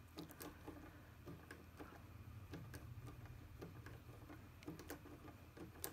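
Faint, irregular clicks, a few a second, from a Turbo Decoder HU66 lock decoder being turned and worked in a first-generation VAG ignition lock while it probes the lock at its third setting.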